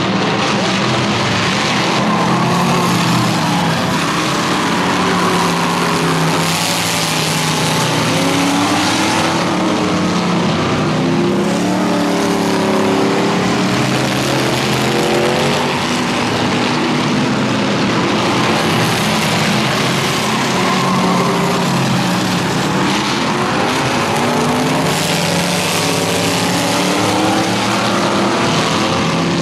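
Engines of several old street cars racing around a paved oval, running hard, with their pitch rising and falling as they accelerate, lift and pass.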